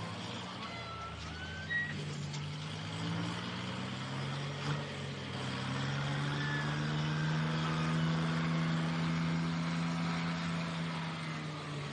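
Heavy earth-moving machine's diesel engine working under load, its pitch drifting up and down and growing louder partway through. A thin whine glides upward about a second in.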